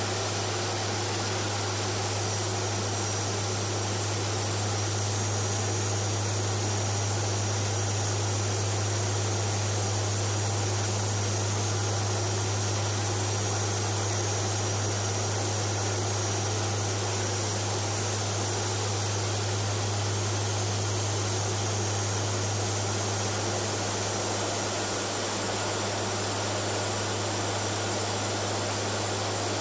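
Steady drone of a WC-130J Hercules's turboprop engines and propellers, heard inside the cockpit, with a strong low hum under a constant rushing noise.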